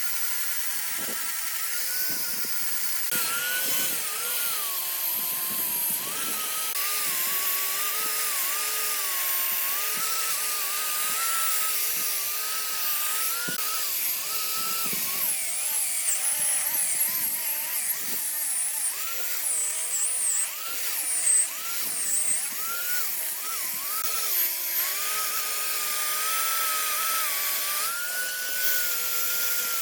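Electric power tool running, its motor pitch dipping and recovering repeatedly, with high squeals near the middle.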